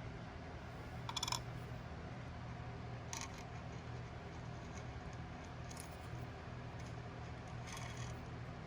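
Four brief metallic clinks and rattles over a steady low hum, from small metal parts of a cuckoo clock being handled on a workbench.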